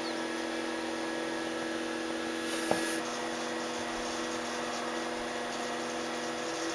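Electric wine pump running steadily, a constant hum with several fixed tones, as it fills two barrels at once. A single short knock about two and a half seconds in.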